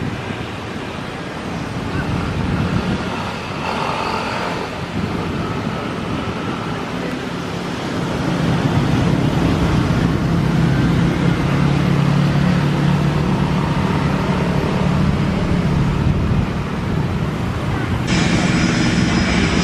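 Steady low engine rumble of airport apron noise, with some voices. Near the end it changes suddenly to the high steady whine of a jet's turbofan engines.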